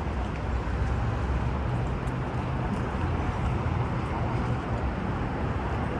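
Steady outdoor city noise: a continuous low rumble of traffic with an even background hiss.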